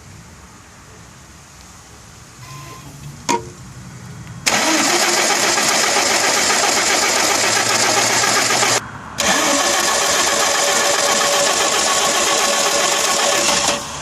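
The starter of a 1992 Audi 100 2.3E's five-cylinder K-Jetronic engine cranks it for about four seconds after a click, pauses briefly, then cranks again for about four seconds. This is a hard-starting engine, which the owner traces to injectors #1 and #2 spraying less fuel than #3 to #5.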